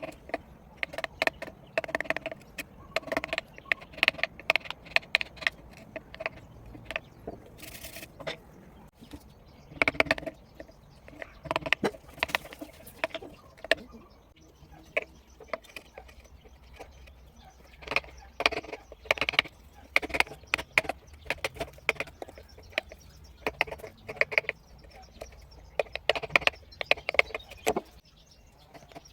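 Steel V-chisel cutting into wood: quick runs of sharp taps and clicks, with short pauses between them.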